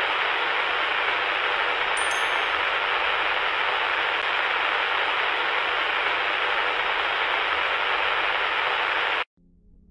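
Loud, steady hiss of static noise that cuts off abruptly about nine seconds in, with a brief, very high sparkling chime about two seconds in.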